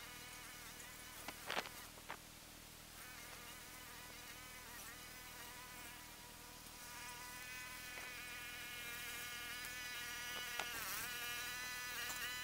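Lawn mower engine heard from a distance, sped up with the time-lapse into a steady, high, insect-like buzz whose pitch wavers now and then. A couple of sharp clicks come about two seconds in.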